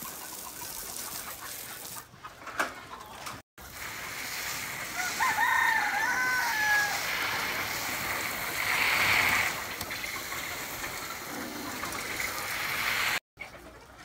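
A rooster crows once, a wavering call of about two seconds, with chickens clucking, over a steady hiss of water spray.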